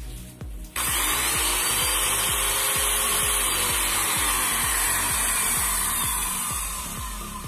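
Corded electric drill switched on and run at full speed with its newly fitted chuck, a loud steady whir that starts suddenly under a second in and winds down near the end, over background music with a steady beat.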